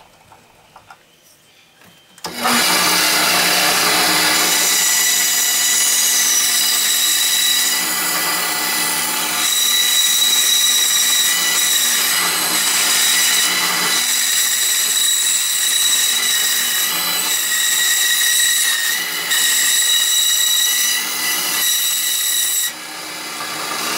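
Craftsman benchtop band saw switched on about two seconds in, running steadily with a high whine as its blade cuts a circle out of a 2x6 turned on a circle jig. The sound drops off near the end.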